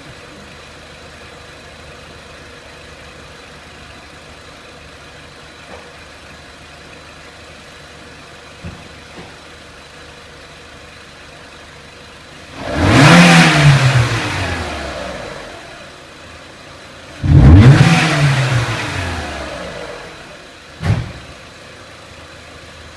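Renault Clio 1.6 petrol engine idling, then revved twice, each blip rising sharply and falling back over about three seconds, the first about 13 seconds in and the second about 17 seconds in, with a short third blip near the end.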